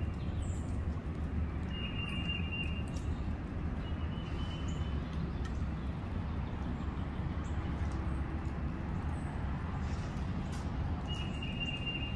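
A bird repeating a flat, high note about a second long, three times, over a steady low rumble.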